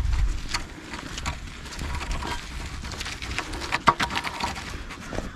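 Footsteps on a muddy dirt track with scattered short knocks and scrapes, a long maple pole's end dragging and tapping along the ground as it is carried, the sharpest knock a little before four seconds in.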